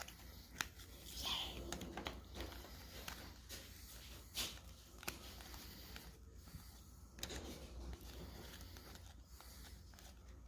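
Hockey trading cards and pack wrappers being handled on a table: faint rustling and scattered light clicks and taps, over a low steady hum.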